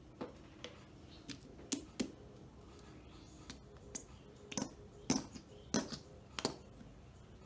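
A scattered series of light clicks and taps from kitchen items being handled while preparing flatbread pizza, coming closer together in the second half.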